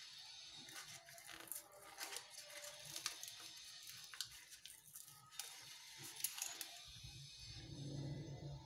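Faint scattered clicks and light handling noise, then a louder low rustle near the end as a packet of baking soda is picked up and brought to the batter bowl.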